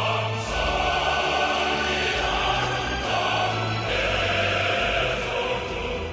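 Choral music with a choir singing long held chords.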